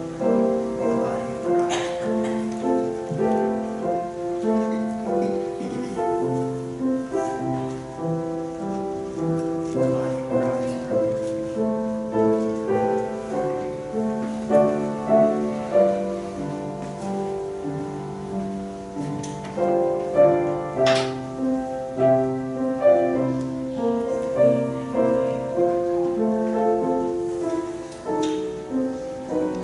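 Slow instrumental music played on a keyboard, held chords under an unhurried melody, with a few faint knocks.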